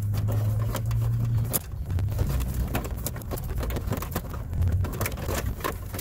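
Audio cables being pulled through a car dashboard, with repeated small plastic clicks and scrapes of wire against trim. A steady low hum underneath stops about a second and a half in.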